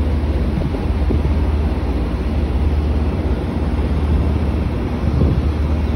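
Steady low rumble with wind buffeting the microphone, outdoors on a rooftop.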